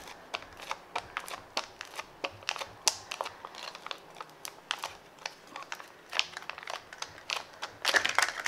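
Foil packet crinkling and crackling as soft clay is peeled out of it, a run of small sharp crackles, with a louder burst of crinkling as the packet is lifted near the end.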